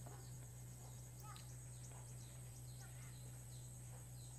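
Quiet room tone: a steady low hum with faint, short falling chirps repeating about twice a second.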